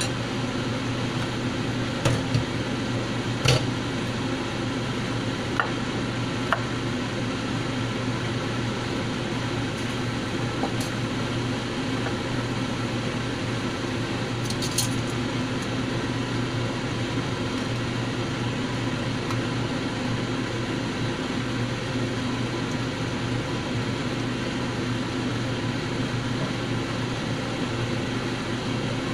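Steady low hum and hiss of a portable butane gas stove burner heating a pan of simmering water, with a few light clicks and pops here and there.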